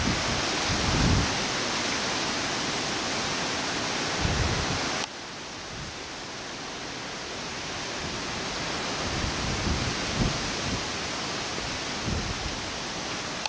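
Steady rushing outdoor hiss with low gusts of wind buffeting the microphone. The hiss drops abruptly about five seconds in and slowly builds back up.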